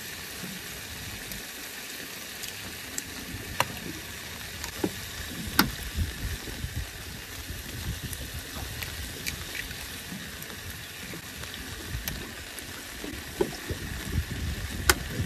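Pan of tomato and chorizo stew simmering and sizzling on a portable gas stove, with a few sharp clicks and taps while eggs are cracked into it.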